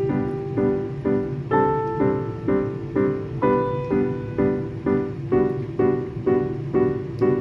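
Background music: a gentle piano tune with steady, evenly spaced chords, about two to three a second.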